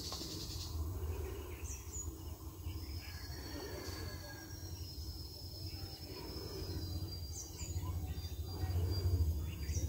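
Trackside ambience: a few sharp, falling bird chirps, near two seconds in and twice near the end, with thin high whistles in the middle. Underneath runs a low rumble that grows toward the end, and faint voices murmur.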